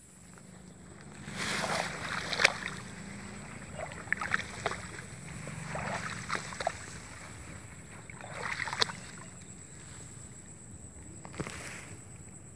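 Someone walking through tall grass: irregular swishing and rustling of stems against legs and body in bursts, with a few sharp clicks.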